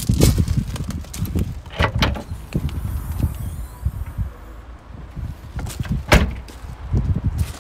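Nissan Micra hatchback tailgate: the latch clicks open about two seconds in, and the tailgate is shut with one loud thud about six seconds in. Footsteps on gravel run underneath.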